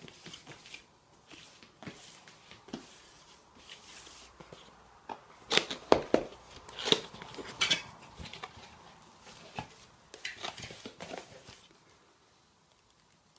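Cardboard box being opened by hand: scattered taps, scrapes and rustles of the cardboard flaps, busiest and loudest in the middle, dying away near the end.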